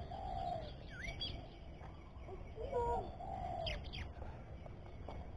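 Bali myna calling: a string of short whistled and buzzy notes that glide up and down, with a swooping note about a second in and two quick high downward sweeps a little past the middle.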